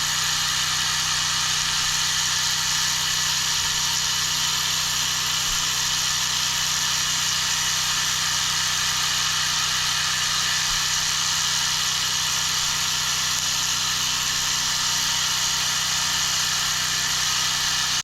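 Pressure washer spraying block paving: a steady hiss of the water jet with the machine's steady hum underneath.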